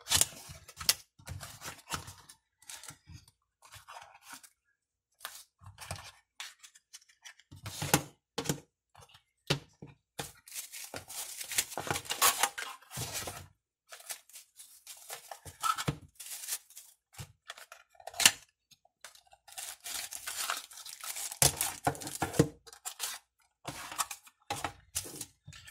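Cardboard and paper packaging being opened and handled by hand: box flaps scraping and paper and plastic bags rustling and tearing in irregular scratchy bursts, with small knocks as items are set on the table.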